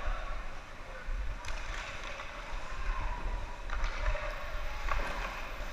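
Hockey skate blades scraping and swishing on rink ice during youth play, with a few sharp knocks scattered through, and a low rumble underneath.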